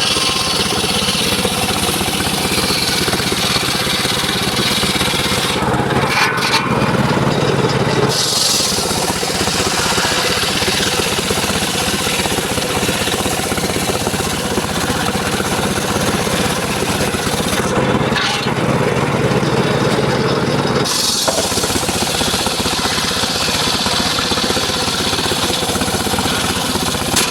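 Mobile circular sawmill running continuously while cutting mahogany, a steady loud machine noise. Twice, for two to three seconds, the high hiss drops away and a heavier, lower sound takes over.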